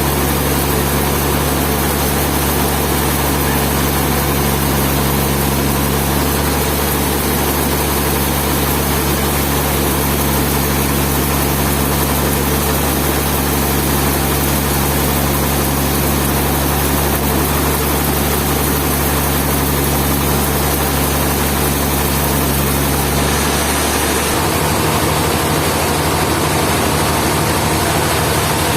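A heavy engine running steadily and loudly under a dense mechanical noise. About 23 seconds in, its low tone shifts as the engine changes speed.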